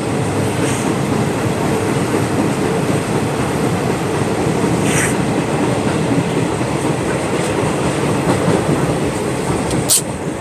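Steady running noise of a moving passenger train heard inside the carriage: wheels rumbling on the rails. A few brief sharp clicks stand out, about halfway through and again near the end.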